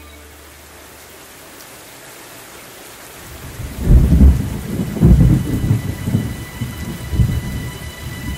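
Steady rain hissing, then thunder rumbling from about four seconds in, with loud deep peaks around four, five and seven seconds.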